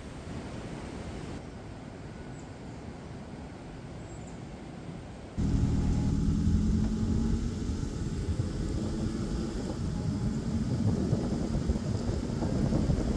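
A faint steady hiss, then about five seconds in a sudden switch to a car driving along a road: a steady, louder low rumble of engine and tyres.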